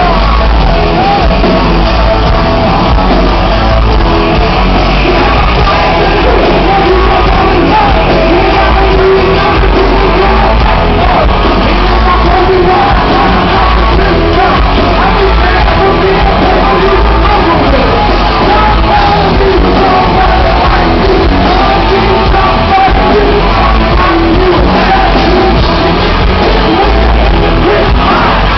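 Hard rock band playing live in a large hall, with a male lead singer over guitars and drums, loud and unbroken.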